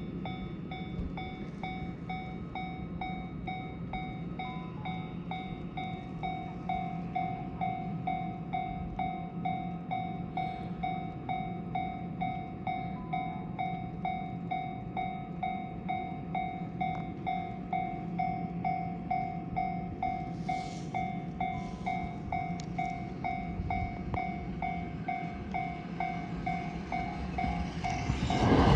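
Railway level-crossing alarm ringing in a steady, even repeat as a train approaches. In the last second the train's own noise comes in loud.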